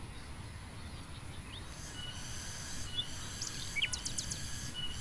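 Outdoor ambience: a few short, high bird chirps and, from about two seconds in, a high steady buzz of insects over a faint low rumble.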